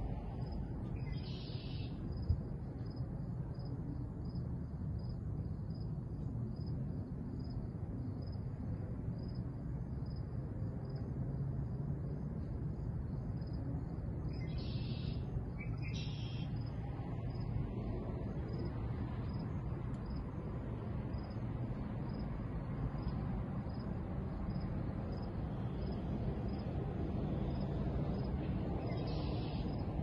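Evening outdoor ambience: a low steady rumble underneath, a faint high chirp repeating evenly about twice a second, and a few short bird calls near the start, midway and near the end.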